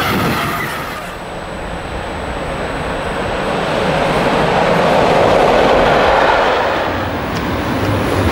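A freight train passing, with a continuous rumble of wheels and wagons that swells to its loudest about five to six seconds in, then eases. A faint steady high whine is heard from about a second in.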